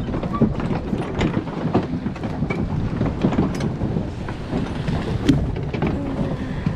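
Wind rumbling and buffeting on a body-worn camera's microphone, with many irregular knocks and rustles from footsteps on wooden dock boards and the camera moving. One sharper knock comes about five seconds in.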